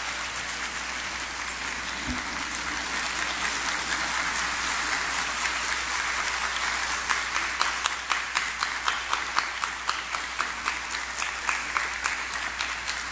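Audience applauding steadily. From about halfway through, separate sharp claps stand out, a couple each second.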